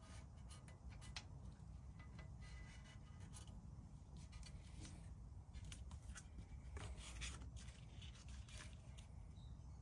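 Near silence: a faint low hum with a few scattered small clicks and rubbing sounds.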